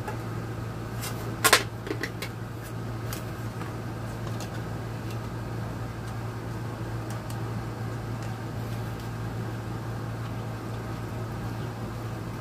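A sharp tap about a second and a half in, then faint scattered clicks of a scoop and stirring stick against a small container while powdered wood filler is mixed with water, over a steady low hum.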